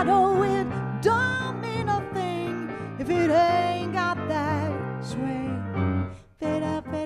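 A woman singing held, wavering notes with vibrato over live piano accompaniment in a swing jazz number, with a brief break about six seconds in.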